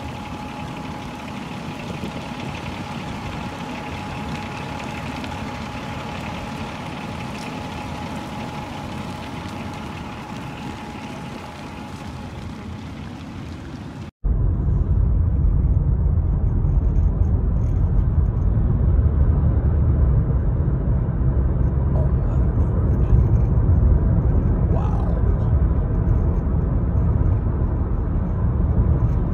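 A steady rushing hiss with a faint held tone, then an abrupt cut about 14 s in to a louder, heavy low rumble of wind buffeting the microphone and traffic noise beside a freeway.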